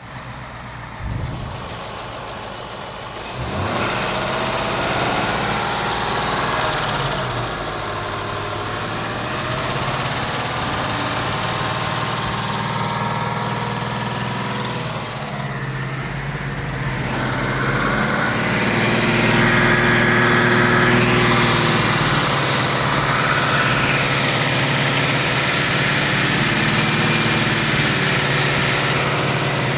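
2018 Ford Mustang GT's 5.0-litre V8 running while stationary, held at a series of steady engine speeds between idle (about 800 rpm) and about 2,700 rpm. The engine gets louder about three to four seconds in and is loudest about two-thirds of the way through.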